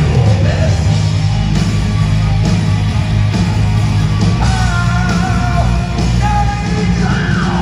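Live heavy metal band playing at full volume: distorted electric guitars, bass and drums, with a male singer's held, high vocal lines over them.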